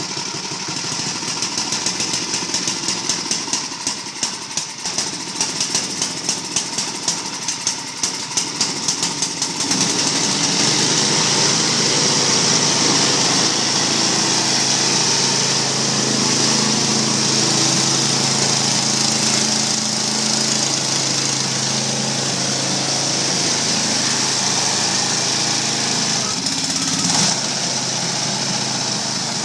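Old Allis-Chalmers walk-behind snowblower's small engine running, rough with regular sharp pops a few times a second for the first ten seconds or so, then settling into a steady, even run. Near the end the machine is throwing snow from its chute.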